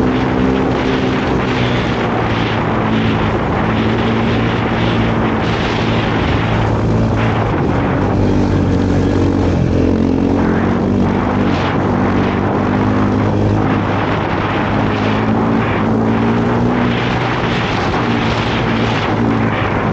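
2020 KTM 450 SX-F snowbike's single-cylinder four-stroke engine running steadily under way. Its pitch wavers slightly up and down, over a steady rushing hiss.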